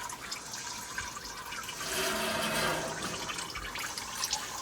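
Used engine oil pouring out of a vehicle's oil pan drain hole into a bucket: a steady splashing stream that swells a little about two seconds in. The oil is old, dark and due for a change.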